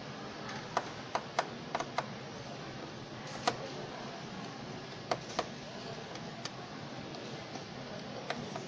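Small sharp clicks and taps of a precision screwdriver and fingers on a smartphone's inner metal frame and screws, about ten in all, most packed together in the first two seconds and a few spread out after, over a steady hiss.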